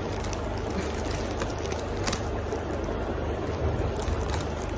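Plastic courier mailer bag being handled and torn open by hand: a few short, sharp crackles over a steady low background rumble.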